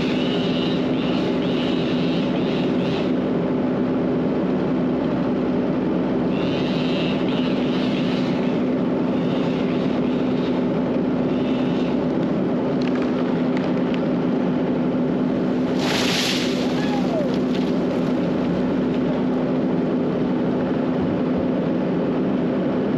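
An engine running steadily at constant speed, with a brief louder rush of noise about sixteen seconds in.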